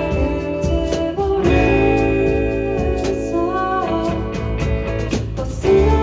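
Live acoustic band music: acoustic guitar playing under a singing voice, with steady low bass notes.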